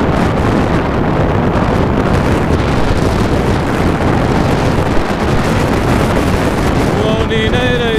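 Steady wind rushing over the microphone of a motorcycle rider's camera at cruising speed, with the motorcycle's running and road noise mixed under it. A wavering pitched sound begins near the end.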